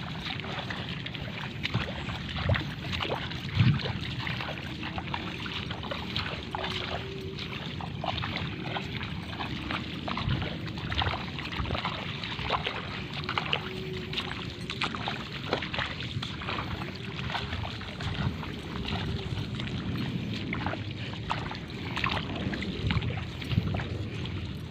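Movement through wet rice paddy: frequent small splashes, clicks and rustles over a steady background hiss.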